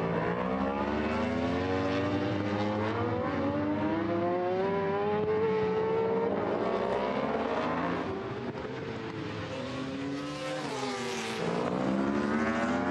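Several superbike racing motorcycles accelerating hard together, their engine notes overlapping and rising in pitch. About eight seconds in the sound drops briefly, then rises again as more bikes accelerate.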